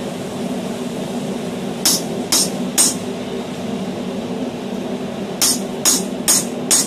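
Light hammer taps on a slitter held against a glowing bar of hexagonal medium-carbon steel on the anvil, each a sharp metallic clink: three about two seconds in, then four more near the end. The taps mark where the hammer eye will be slit, before heavier blows.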